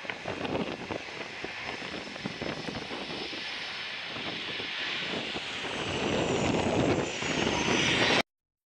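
Boeing 737 jet engines during landing and rollout, a steady rumble with a high fan whine slowly falling in pitch, with gusty wind buffeting the microphone. The engines grow louder after touchdown, then the sound cuts off suddenly.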